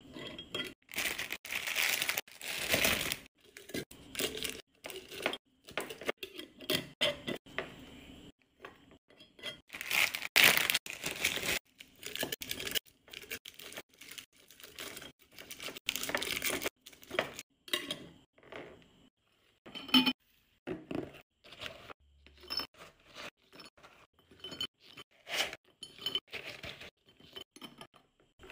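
Individually wrapped candies being handled and dropped into glass jars: plastic wrappers crinkling and rustling, with irregular clinks of candy and metal screw lids against the glass.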